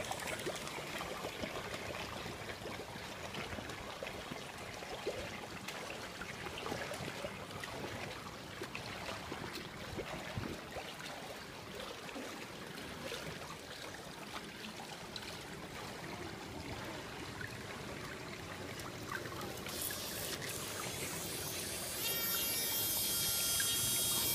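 Pool water trickling and lapping steadily. Near the end a high, steady electric whine starts: the micro boat's 6 mm pager motor running.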